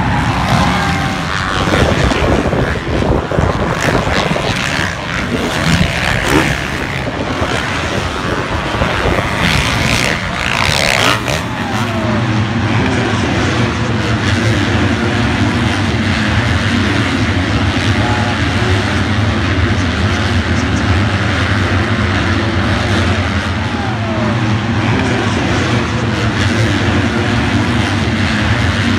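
A pack of motocross bikes racing together, many engines buzzing at once with revs rising and falling. The sound becomes a steadier drone about halfway through.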